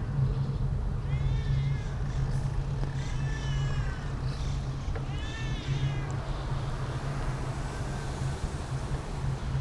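Three short animal calls, each rising then falling in pitch, over a steady low hum.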